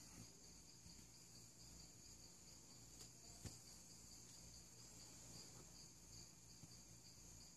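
Near silence: room tone with a faint, high, evenly pulsing chirp in the background and one faint click about three and a half seconds in.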